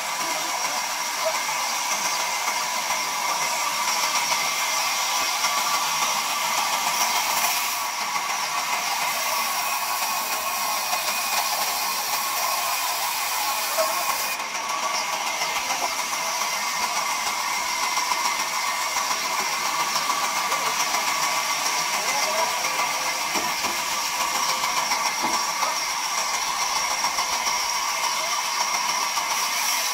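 Large sawmill band saw running steadily, its blade cutting lengthwise through a timber log being fed across the table, a continuous whirring hiss with a steady whine.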